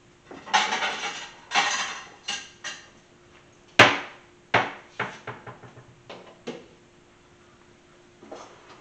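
Dishes and utensils being handled as a plate is served up: two scraping rushes in the first two seconds, then a sharp clack about four seconds in, the loudest, followed by several lighter clacks.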